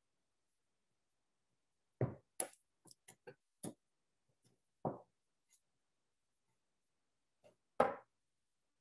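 Knife blade knocking on a plastic cutting board as a wheel of brie is cut into wedges: a scatter of short knocks with silence between, the loudest about two seconds in and near the end.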